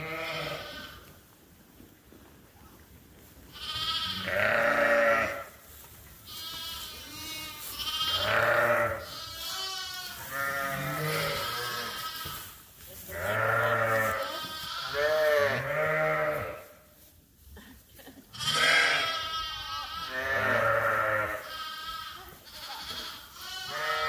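Sheep bleating again and again, several quavering calls overlapping, with short pauses between bursts.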